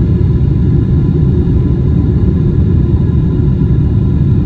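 Steady, loud low rumble of a twin-engine Boeing 777-200 jetliner, heard from inside the passenger cabin, with faint steady engine whine tones above it.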